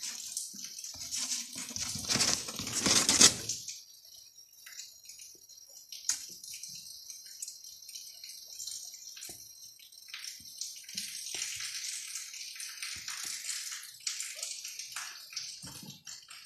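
A steady high hiss, fuller and louder for the first few seconds, with faint scattered taps and scuffs from kittens playing on a concrete floor.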